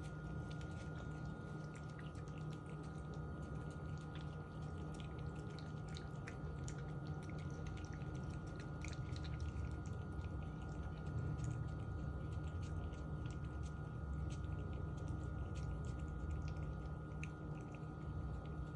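A cat eating wet tuna food, with many small, irregular wet clicks and smacks of chewing and licking over a steady low hum.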